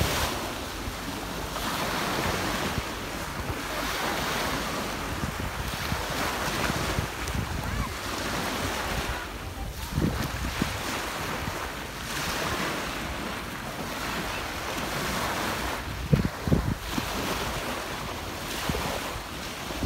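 Small waves breaking and washing up a sandy beach, swelling and falling back every few seconds. There are a few short low thumps about halfway through and again near the end.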